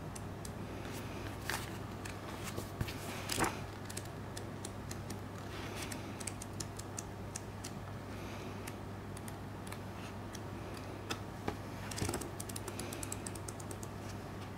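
Pages of a paperback art booklet being leafed through by gloved hands: scattered small paper clicks and rustles, with a few louder page turns.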